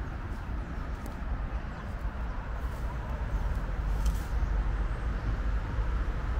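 Urban road traffic: a steady low rumble of vehicles, growing a little louder about four seconds in, with a few sharp clicks over it.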